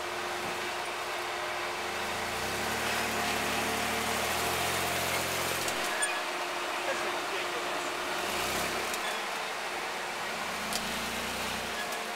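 Mitsubishi Montero's engine running at low revs while rock crawling, pulling harder under load for a few seconds at a time: about two seconds in, briefly past the middle, and again near the end.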